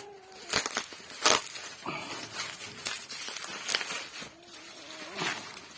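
Bubble wrap and plastic packaging rustling and crinkling as a parcel is unwrapped by hand, with a few sharp crackles scattered through.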